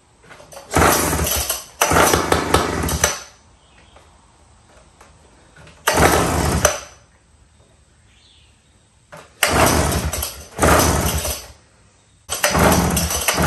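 Gamefisher 3 hp two-stroke outboard being pull-started: six rope pulls, mostly in pairs, each about a second of the recoil starter spinning the engine over. The engine does not catch between pulls.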